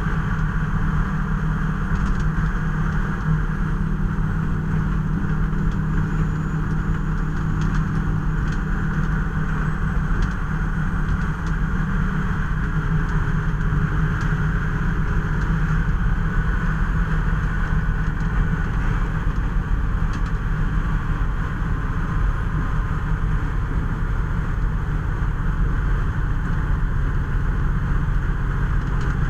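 Steady engine and road noise of a fire department squad vehicle, a constant low rumble with no marked changes.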